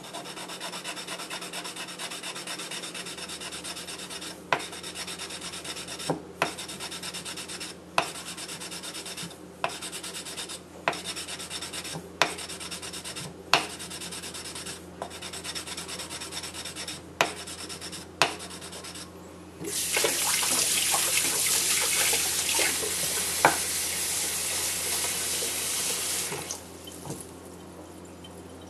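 Wooden block scrubbing a steel knife blade with a wet abrasive powder slurry, a steady gritty rubbing with a sharp tick about every second and a half. This is hand-polishing the blade to bring back its whetstone-mark finish. For about seven seconds late on the scrubbing turns much louder and harsher, then stops.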